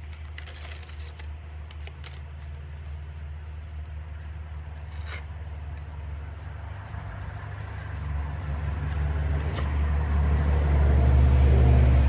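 A steady low rumble grows much louder over the last few seconds. Faint short crackles of fibreglass mat being torn apart by hand are heard over it.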